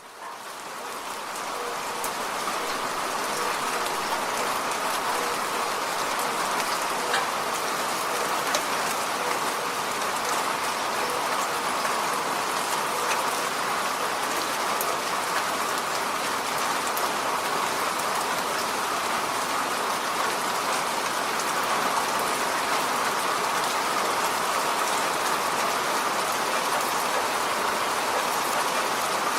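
Steady rain falling on a road, fading in over the first couple of seconds and then holding even, with a few sharper individual drop hits scattered through it.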